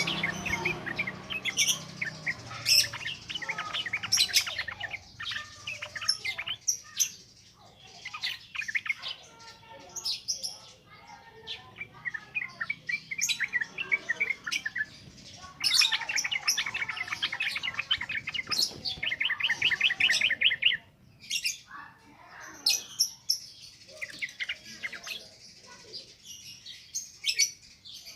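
Yellow-vented bulbul (trucukan) singing in quick, chattering phrases with fast trills, one after another. A short pause comes about two-thirds of the way through.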